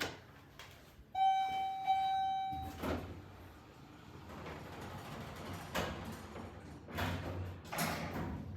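An elevator's electronic tone sounds for about a second and a half, with a short break in it. The car's doors then slide, with rumbling and clunks.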